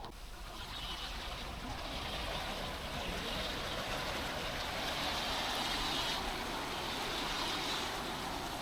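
Rushing river water, a steady hiss that builds gradually over the first couple of seconds and then holds.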